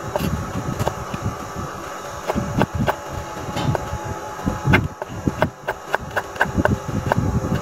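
Kitchen knife dicing a green bell pepper on a wooden cutting board: a run of irregular sharp taps as the blade strikes the board.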